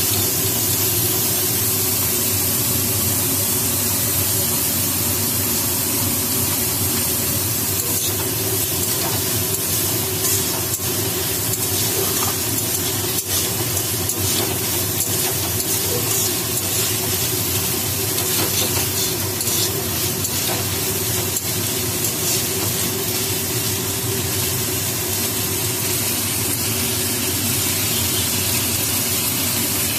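Chopped onions sizzling steadily in hot oil in a kadai, stirred with a steel spatula that clicks and scrapes against the pan now and then.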